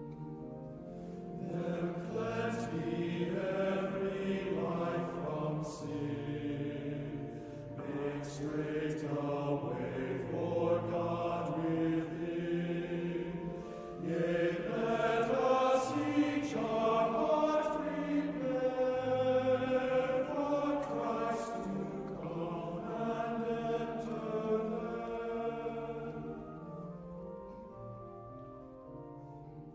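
Choral music: a choir singing a slow piece, fading out near the end.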